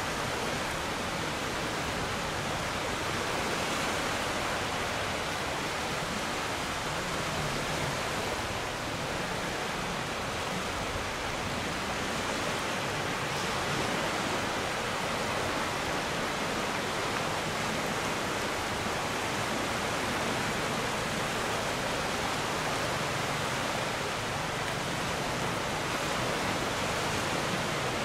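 Steady rushing noise of wind and water on a sailing boat under way, an even hiss with a fluttering low rumble.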